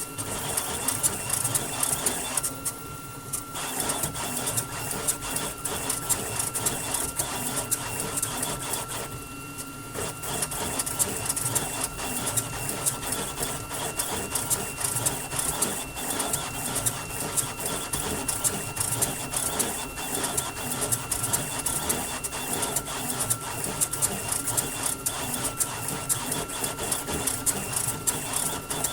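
Flashforge Adventurer 5M 3D printer printing at high speed, around 500 mm/s: rapid, busy whirring and clicking of the print head moves over a steady high whine. Twice the movement noise briefly drops away, about three seconds in and again near ten seconds.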